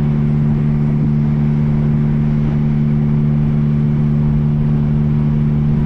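MG Midget Mk3 sports car at a steady cruise: a constant engine drone with road noise, the pitch holding level throughout.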